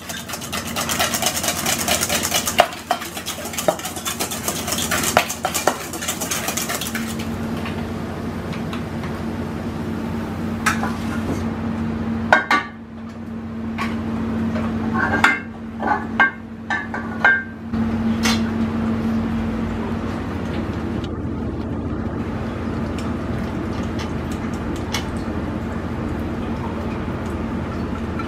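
A wire whisk beating eggs into a foam in a stainless steel bowl, a fast continuous metallic clatter that stops about seven seconds in. After that a steady kitchen hum, with scattered clinks and knocks of pans and utensils.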